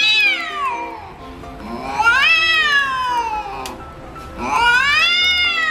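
A cat yowling in a threat standoff with another cat: three long drawn-out yowls, each rising then falling in pitch, about two seconds apart.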